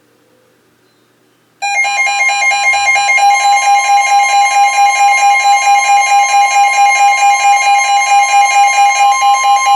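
Weather-radio alert alarm: a loud, steady warning tone with a fast pulsing beep over it, starting suddenly about a second and a half in. It marks the start of an incoming severe weather warning broadcast.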